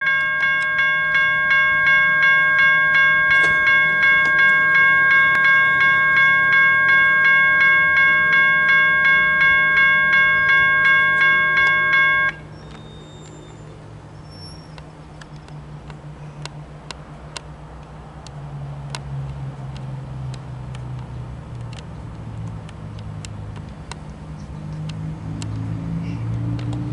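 Railroad grade-crossing bell ringing in quick, evenly paced strokes, about two or three a second, then cutting off suddenly about twelve seconds in. After it, the low rumble of an approaching freight train's diesel locomotive grows steadily louder.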